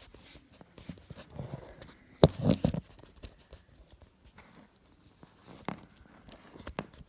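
Combination bike lock being handled and worked: scattered clicks and knocks, with a loud clack and a short rattle about two seconds in and a couple more clicks near the end.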